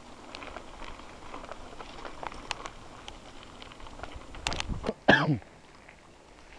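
Mountain bike clattering and rattling over a rough dirt trail, then a couple of heavy jolts about four and a half seconds in, followed by a short cough from the rider, falling in pitch.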